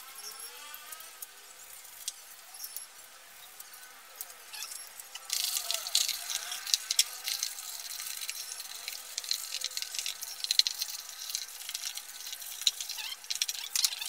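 Scrubbing and rubbing the wet plastic pulsator of a top-loading washing machine to clean off built-up dirt. It is a rough scraping and rubbing with many small clicks that starts about five seconds in and goes on steadily.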